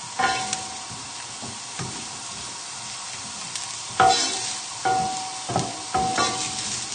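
Diced chorizo, shallots and garlic frying with a light sizzle in a non-stick frying pan while a wooden spatula stirs them around. The spatula scrapes and knocks against the pan a few times, once just after the start and four times in the second half, loudest about four seconds in.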